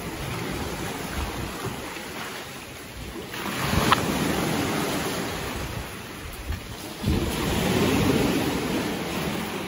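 Sea waves breaking and washing over a rocky, pebbly shore, with two louder surges, about three and a half and seven seconds in.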